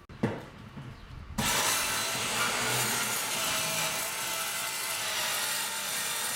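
A knock, then a power saw starts abruptly about a second and a half in and runs steadily, cutting into a wooden ceiling to open up a wild bee hive.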